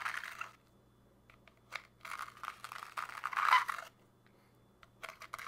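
Coarse, salt-like sand being spread out in a miniature zen garden tray: gritty crunching and scraping in bursts, the longest starting about two seconds in.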